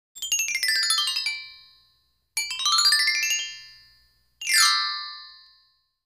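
Synthesized chime glissandi of an intro jingle: three sparkling runs of bell-like notes, the first falling, the second rising and the third a quick downward sweep, each ringing out and fading.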